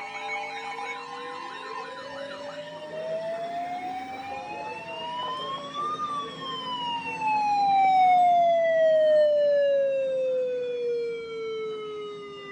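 The tail of an Emergency Alert System two-tone attention signal, with warbling alert tones over it, stops about two seconds in. A siren tone then winds up slowly to a peak about six seconds in and winds back down, loudest as it falls, over a low steady hum.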